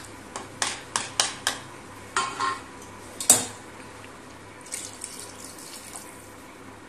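Clinks and knocks of a wooden spoon and steel vessel against a stainless steel cooking pot, with water splashing as it goes into the curry. There is a quick run of clinks in the first second and a half and a single louder clank a little past the middle.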